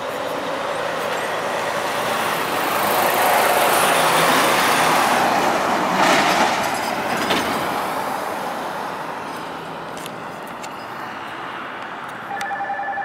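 Tractor-trailer truck passing close by on the road, building to its loudest about six seconds in and then fading away. Near the end a pulsing tone begins.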